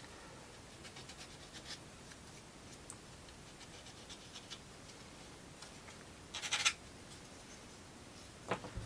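Wooden plywood model-kit pieces being handled and fitted together: scattered faint clicks and light taps, a short scraping rustle about six and a half seconds in, and a sharp click near the end.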